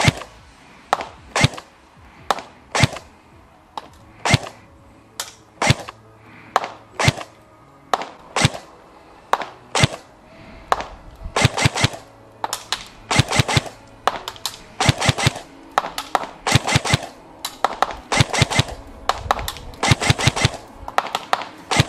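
Tokyo Marui P90+ airsoft electric gun firing: single sharp shots, one or two a second, for about the first ten seconds, then short rapid bursts of a few shots each.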